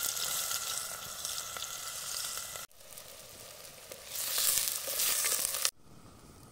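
Chopped onion sizzling as it is tipped into a hot, oiled pot over a wood fire and stirred with a wooden spoon, the sizzle swelling again about four seconds in. Near the end the sizzle cuts off suddenly and only a quieter, faint stretch remains.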